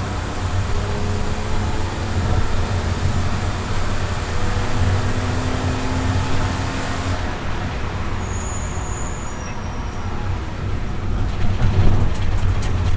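In-cabin sound of a BMW 325i's straight-six engine pulling hard up to about 5000 rpm, with tyre and road noise, then easing off as the car slows for a corner near the end. A few sharp ticks come near the end.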